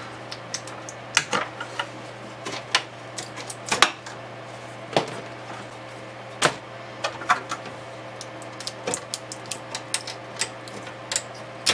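Irregular clicks, taps and light knocks as hands unplug ribbon cables and connectors inside the open metal chassis of a Kurzweil K2000R rack synthesizer, over a steady low hum.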